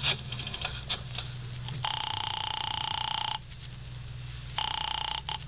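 A few clicks of a telephone dial, then a telephone ringing on the line: one buzzy ring of about a second and a half, a pause of about a second, then a second ring cut short when the call is answered.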